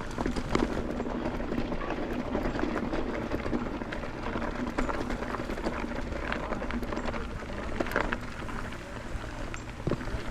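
Mountain bike rolling along a dirt trail: steady tyre and wind noise with frequent clicks and rattles from the bike over rough ground.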